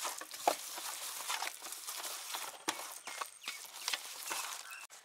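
A hand squashing and mixing wet tandoori spice paste on a metal tray: irregular squelches and scrapes of fingers through the paste against the metal.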